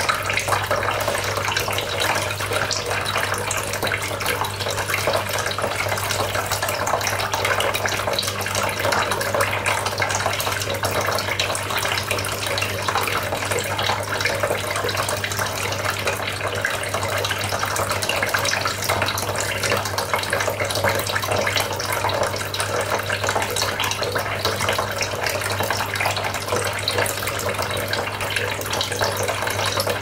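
Water from a homemade cement tabletop fountain splashing steadily from several spouts into its pebble-lined basin, with a steady low hum underneath.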